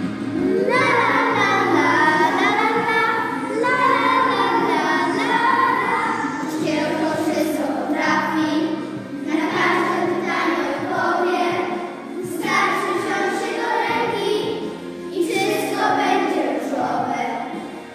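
A group of children singing a song together over recorded backing music, in sung phrases a few seconds long.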